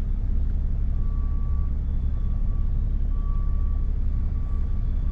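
Vehicle engine idling with a steady low rumble, while a faint high-pitched reversing alarm beeps repeatedly from about a second in.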